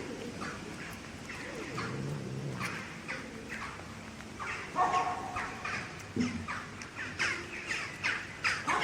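Birds calling: a steady series of short, repeated calls, with one briefly held call about five seconds in.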